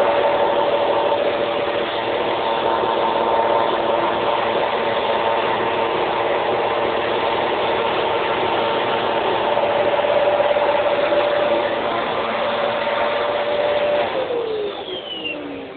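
Upright vacuum cleaner running steadily, its motor giving a whine over the rushing airflow. Near the end it is switched off and the motor winds down, its pitch sliding down. Its bag is full, and the user says it is choking it.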